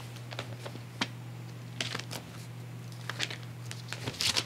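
Soft rustling and light clicks of paper being handled, as of a book's pages being turned, over a steady low electrical hum.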